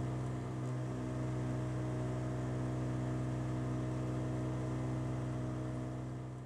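A steady low drone with a constant pitch, fading out near the end.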